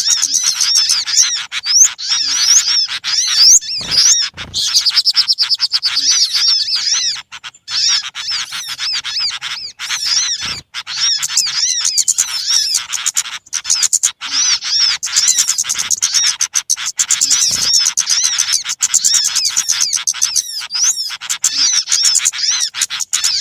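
Many small birds chattering at once: rapid, high, overlapping chirps in a dense noisy flock chorus with only brief breaks. It is a lure call (suara pikat) played to draw small birds in.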